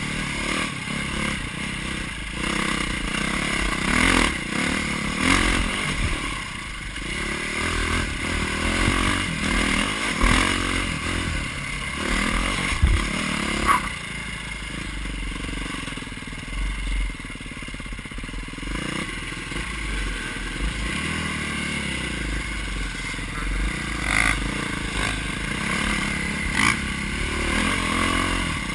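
KTM dirt bike engine revving up and down while riding over rough rocky ground, with the bike clattering and several sharp knocks from the terrain.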